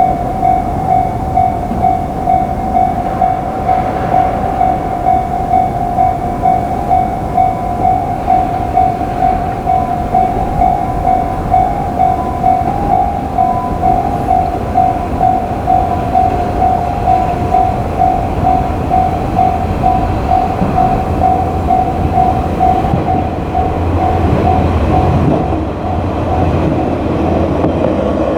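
Japanese level crossing warning bell ringing its repeating 'kan-kan' clang, about two strikes a second, while a train runs past on the rails. The bell stops near the end and the train's low rumble carries on.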